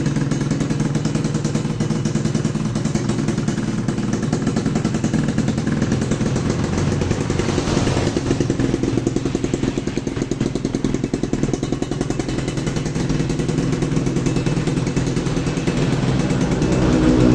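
Suzuki Tornado 110 motorcycle's small single-cylinder engine running steadily, picking up a little near the end.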